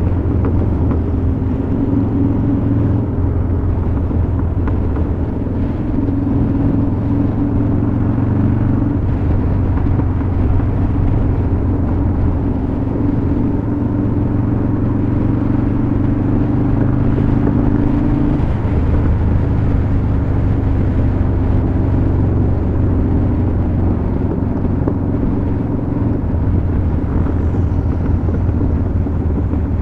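Harley-Davidson Dyna Super Glide Custom's air-cooled V-twin running steadily at highway cruising speed, heard from the rider's position on the moving bike. The engine note shifts slightly a couple of times.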